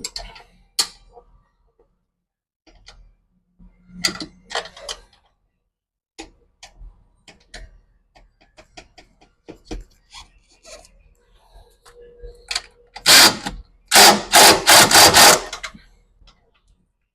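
A handheld power tool run in several short bursts, the loudest sound, near the end, with scattered clinks and knocks of tools and metal parts before it.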